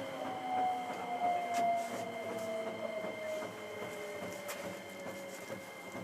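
Hankyu 9300 series electric train's traction motors whining, the tone falling slowly and steadily as the train slows. A few faint sharp clicks come through over the whine.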